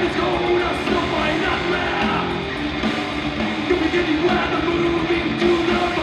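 Heavy metal band playing live: distorted electric guitars over fast drums, loud and dense, heard from inside the crowd at a club show.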